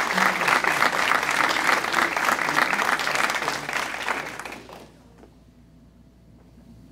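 Audience applauding, dense clapping that thins out and dies away about four to five seconds in, leaving a quiet room with a faint steady hum.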